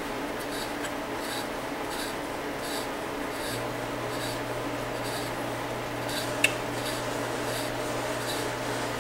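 Hand tap turned by a T-handle tap wrench, cutting a 1/4-inch NPT thread into thin plastic: a steady rasping scrape that repeats about twice a second, with one sharp click about six and a half seconds in.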